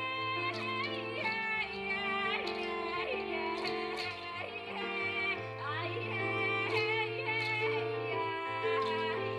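Quena (Andean notched flute) playing a slow melody with slides and vibrato over held bass notes and sustained chords.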